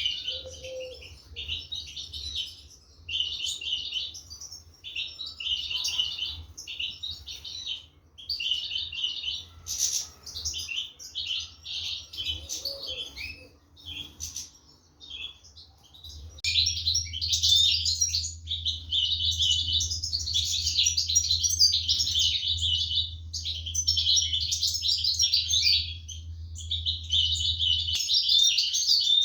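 Goldfinches chirping rapidly in short bunches, becoming continuous and louder about halfway through, over a low steady hum.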